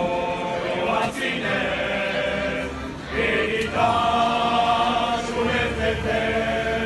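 A group of men singing together in a slow song, holding long notes, with short pauses for breath about a second in and again about three seconds in.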